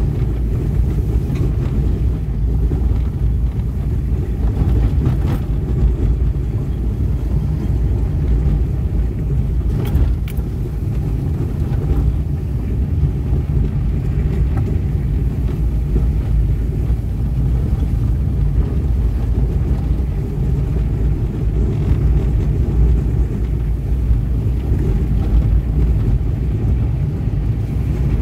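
Steady low rumble of a car being driven: engine and tyre noise, with a couple of faint knocks about five and ten seconds in.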